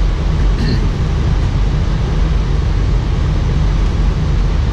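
Steady flight-deck noise of an Airbus A319 on approach: a deep rumble and rush of airflow and engines. A brief, faint high blip comes less than a second in.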